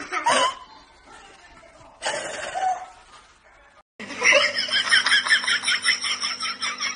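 A toddler laughing and squealing, then, after a cut, a loud, fast, even run of high pulses, several a second, over a steady low tone.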